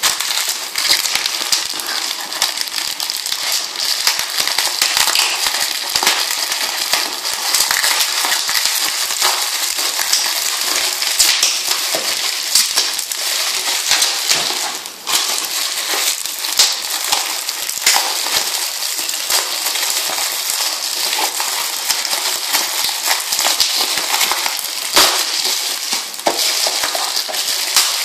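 Bubble wrap and paper packing crinkled and torn by hand to unwrap a parcel: a continuous dense crackling full of sharp snaps, with a brief lull about halfway through.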